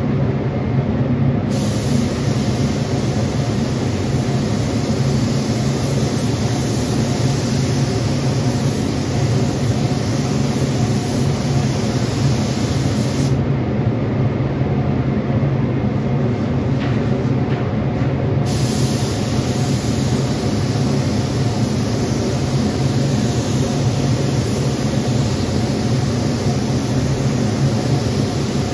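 HVLP spray gun hissing with compressed air as it sprays 2K primer, in two long passes: the hiss starts about a second and a half in, stops for about five seconds near the middle, then resumes. A steady low machine drone runs underneath.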